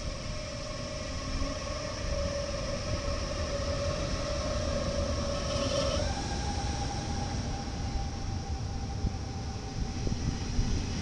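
NS DDZ double-deck electric train accelerating away from the platform: a pitched electric drive whine, rising slightly, jumps to a higher pitch about six seconds in, over a steady rumble of wheels on rails.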